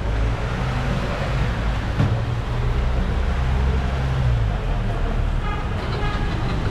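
Street traffic: a vehicle engine running close by with a low steady hum that eases off about four and a half seconds in, over a steady hiss of road noise.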